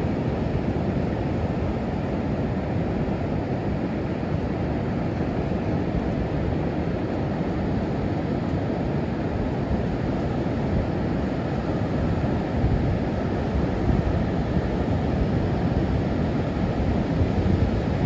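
Ocean surf on a sandy beach: a steady low rush of breaking waves and water washing over the sand. Wind on the microphone adds a gusty rumble, with a few louder buffets in the second half.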